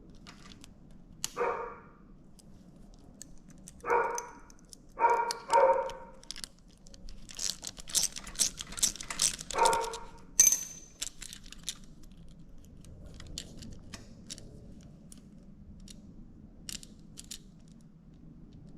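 A dog barks five times in short single barks, the first three spread out and the last two close together. Around the middle comes a quick run of clicks and rattles, like small metal parts being handled.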